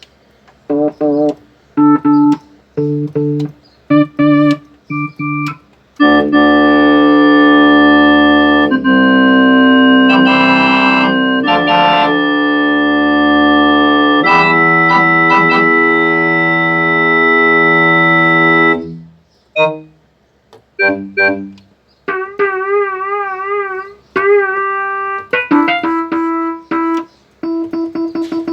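Yamaha DX21 four-operator FM synthesizer being played through its patches in a sound test after repair: short chords at first, then long held chords from about six seconds in, then short notes and a stretch of notes with a strong vibrato near the end.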